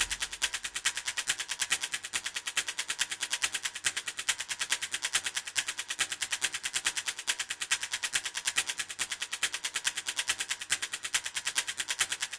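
Quiet stretch of a fast, percussive action-film style music score: a rapid, even ticking pulse, mostly high-pitched, with the heavy low drums dropped out.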